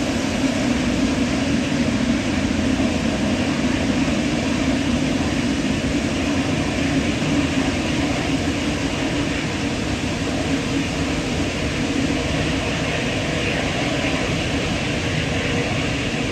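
Steady jet engine noise from an airliner, an even, unchanging rumble with no rise or fall.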